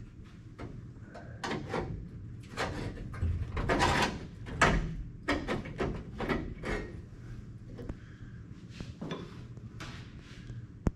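Steel roof-skin panel on a 1969 Plymouth Fury III parts car being pried and worked loose by hand: irregular scraping and creaking of sheet metal, with a sharp click near the end.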